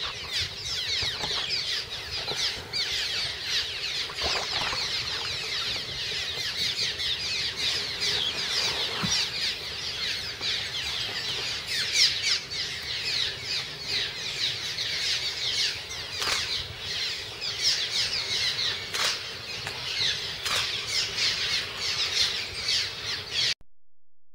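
A nesting colony of cliff swallows calling nonstop: a dense chatter of many overlapping short, high, falling chirps, with a few sharp clicks among them. It stops abruptly near the end.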